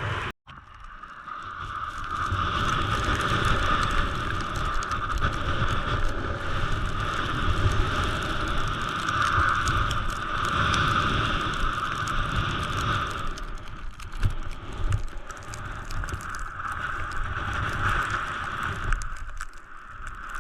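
Skis running through heavy, wet new snow, a steady hiss with wind rumbling on the action camera's microphone. The sound cuts out for an instant just after the start.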